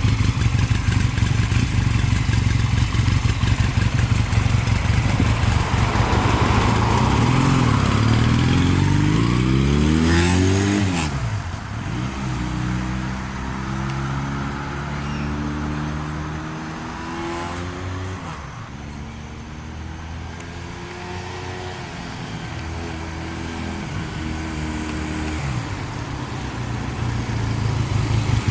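Honda Rebel 250 motorcycle engine idling, then pulling away and accelerating through several gears, its pitch rising and dropping back with each upshift before easing off near the end.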